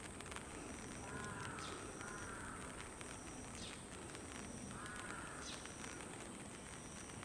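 A crow cawing three times in short harsh calls, about a second apart and then again a few seconds later, over a steady background hiss.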